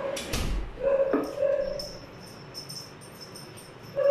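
A dog whining in a steady, high-pitched tone, with a thump just after the start. The whine breaks off and picks up again about a second in, then gives way to faint, light clicks.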